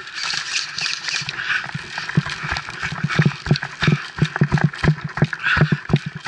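Running footsteps thudding on the forest floor, a few strides a second and quickening after about two seconds, with rustling over them.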